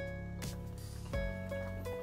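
Background music: a guitar tune over a light beat.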